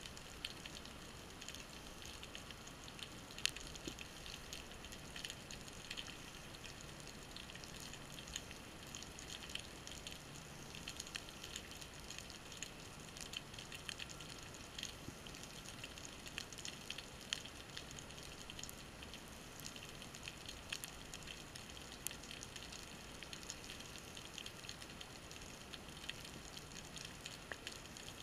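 Underwater reef ambience heard through a camera housing: a dense, steady crackle of tiny clicks, with a few louder single clicks.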